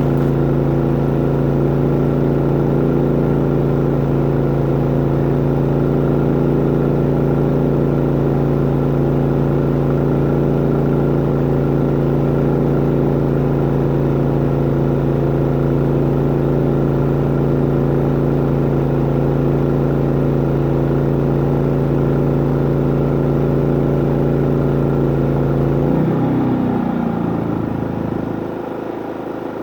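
Harbor Freight inverter generator running steadily under the load of a trailer air conditioner. Near the end its engine note glides down and grows quieter as the generator throttles back: the AC load has been switched off.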